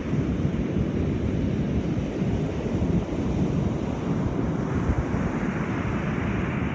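Rough ocean surf breaking and washing up the beach, a steady rushing noise, with wind buffeting the microphone. The hiss of the surf grows fuller near the end.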